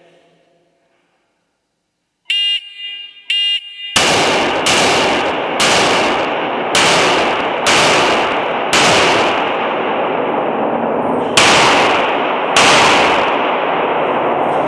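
Two short electronic beeps, then a handgun firing eight shots indoors, each with a long ringing echo off the range walls. The shots come about one a second, with a longer pause before the last two.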